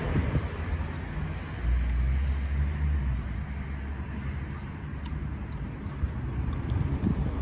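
Road traffic: a motor vehicle's engine running low as it passes, loudest about two seconds in.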